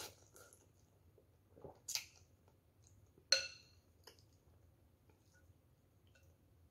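Eating noises from a bowl of noodles: a short slurp at the start and a sharp click about two seconds in. Just after three seconds a metal spoon clinks once against the bowl and rings briefly.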